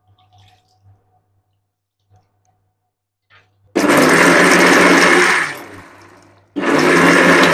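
Indian mixer grinder (mixie) run in two short pulses, grinding black pepper into a paste of coconut, curry leaves and cumin with a little water. Each burst starts suddenly, runs for about two seconds and then spins down. The pulses are kept short so the pepper is only lightly ground.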